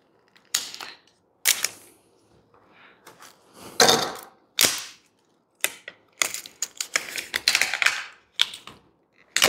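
Battery pack parts being handled during a teardown: a run of irregular short scrapes, clicks and rustles, busiest in the second half.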